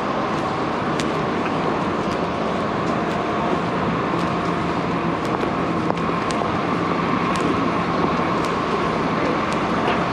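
Downtown street ambience: steady traffic noise with a constant hum running through it, and light ticks about once a second.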